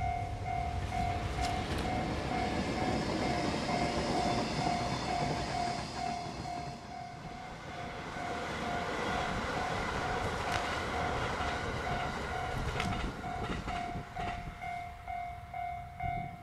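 Electric trains running by on the line: first an EF510 electric locomotive pair pulling away, then, after a short dip, a 681-series electric limited express passing. A railway level-crossing alarm rings steadily through it all, at about two strokes a second.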